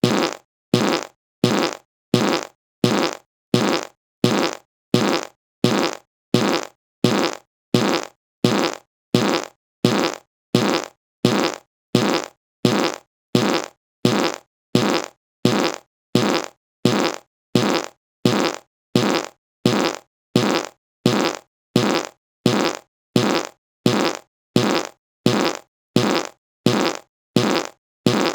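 Fart sound effect: one short fart repeated in an even loop, about three every two seconds. Each one starts sharply and fades quickly, with silence between.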